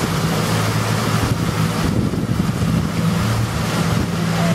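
A 30 hp outboard motor running steadily at cruising speed, driving a small open boat along a river, with the rush of water and wind on the microphone over it.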